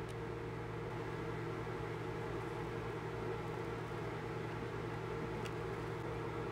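Steady low machine hum, even throughout, with a couple of faint ticks: one right at the start and one about five and a half seconds in.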